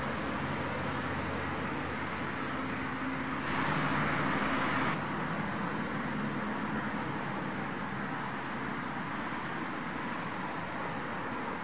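Steady distant engine rumble like road traffic, with a low hum under an even hiss; a louder, brighter hiss starts abruptly about three and a half seconds in and stops abruptly near five seconds.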